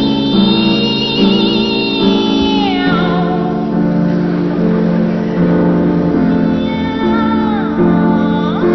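Children's choir singing in imitation of cat meows, with held, wavering notes that slide down twice, about three seconds in and near the end, over a steady instrumental accompaniment.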